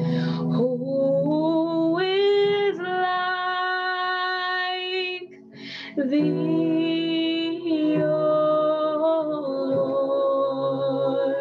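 A woman singing long held notes that slide from one pitch to the next, over sustained keyboard chords, in a slow worship song.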